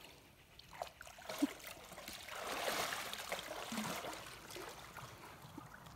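Water sloshing and splashing around a person's legs as she wades through shallow river water, swelling for a couple of seconds in the middle and then fading.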